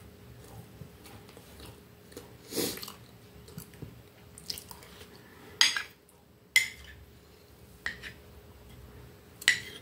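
A metal fork clinking sharply against a plate four times, spaced about a second apart, as a slice of cake is cut and eaten. Soft chewing sounds come before the clinks.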